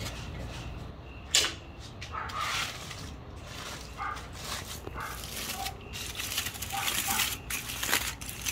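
Aluminum foil crinkling and rustling in irregular patches as a foil-wrapped tri-tip is opened by hand on a wooden cutting board. A single sharp knock comes about a second and a half in.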